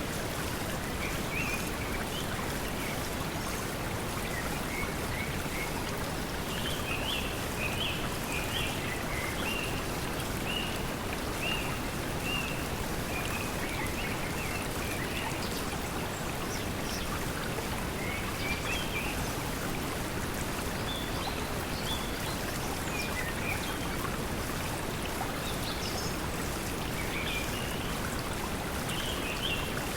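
Steady pink noise blended with the sound of flowing water, with scattered short high chirps, like forest birds, coming and going through much of it.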